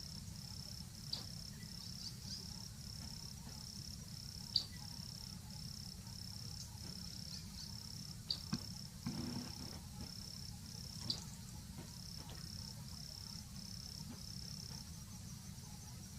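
Insect chirping: a high-pitched pulsed note repeating about twice a second, fading out near the end, with a few sharp clicks scattered through it over a low steady background hiss.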